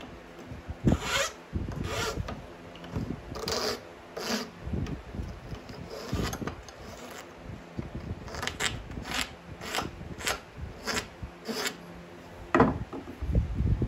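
Flat steel file scraping across a small oak wedge clamped in a vise, in a series of separate strokes that quicken to about two a second in the middle. A few louder low knocks come near the end.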